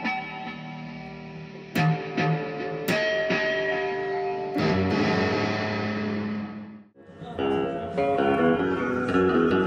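Background guitar music of plucked, held notes that breaks off for a moment about seven seconds in, then carries on.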